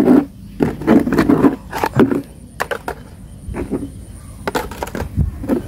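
Muddy plastic toy vehicles being handled in a shallow tray of muddy water: irregular splashes, knocks and clatters of hard plastic against the tray as the toys are picked up and moved.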